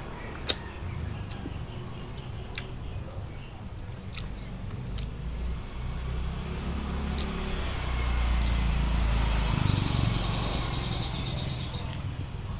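Small birds chirping: scattered short high chirps, then a dense flurry of chirping near the end, over a steady low rumble. A single sharp click about half a second in.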